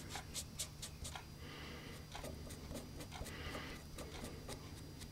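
Faint scratching with scattered light ticks from a bluing pen's tip being worked around the freshly cut steel muzzle of a shotgun barrel.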